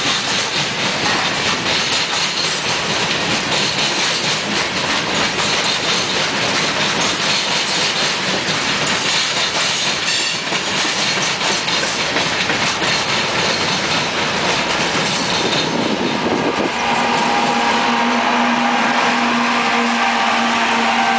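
Coal hopper cars of a unit coal train rolling past, their wheels clicking over the rail. About 16 seconds in, a trailing BNSF GE diesel locomotive comes by, and a steady engine drone with a held hum joins the rolling noise.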